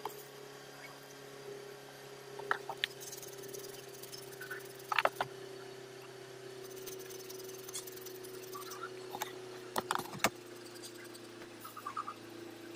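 Sparse clicks and knocks of metal power steering box parts being handled and fitted together by hand, over a steady low hum.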